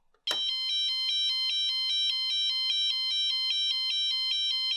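Piezo buzzer of an Arduino-driven model railway level crossing sounding its two-tone warning alarm, swapping between 784 Hz and 1046 Hz notes every 400 milliseconds. It starts suddenly about a quarter second in, set off by the simulated train-detection switch.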